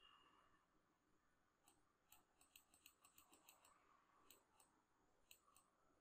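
Faint computer mouse clicks on a scroll arrow: a quick irregular run of about a dozen between two and four seconds in, then a few spaced ones near the end.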